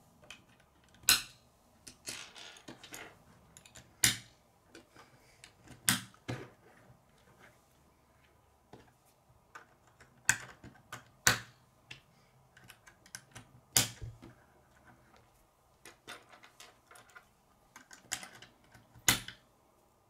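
Plastic K'nex rods and connectors snapping together: a sharp click every one to three seconds, with lighter rattling and tapping of the parts in between.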